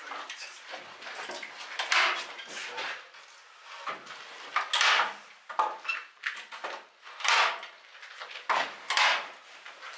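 Handling noises: a series of short scrapes and rustles, the four loudest about two, five, seven and a half and nine seconds in.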